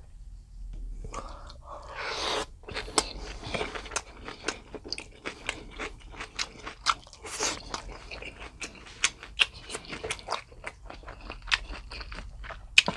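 A person chewing and biting food, with many sharp, wet clicking mouth sounds, several a second, and a louder bite about two seconds in.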